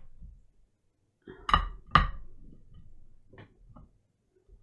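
Two sharp knocks about half a second apart, then a few lighter taps, from protein bar pieces and a plate being handled on a tabletop.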